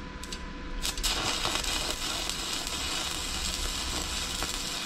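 Electric arc welding: the arc sizzles steadily from about a second in, after a few light clicks.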